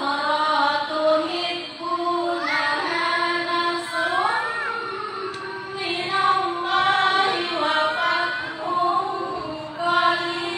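A group of women chanting together in unison through microphones: a drawn-out melodic recitation with long held notes and sliding ornaments.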